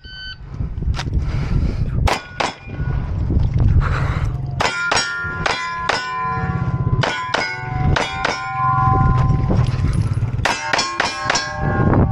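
A string of 9mm pistol shots, most answered by the bright ring of steel plates being hit, fired in quick bursts with short breaks between them.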